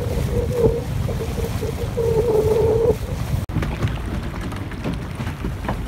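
Boat engine running with wind rumbling on the microphone, and a wavering whine that comes and goes, strongest about two to three seconds in. The sound changes abruptly about three and a half seconds in to a quieter rumble with a few faint clicks.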